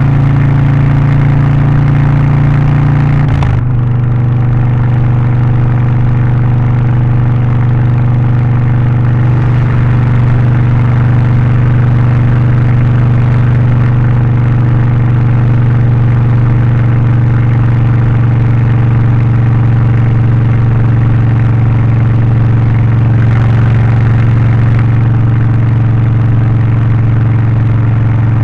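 Harley-Davidson Low Rider ST's Milwaukee-Eight 117 V-twin, Stage 1 tuned with an aftermarket exhaust and air filter, running loud and steady under way. There is a brief break about three and a half seconds in, after which it runs at a slightly lower pitch.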